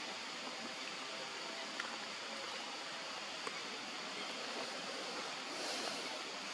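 Steady rushing background noise, with two faint ticks and a brief brighter hiss near the end.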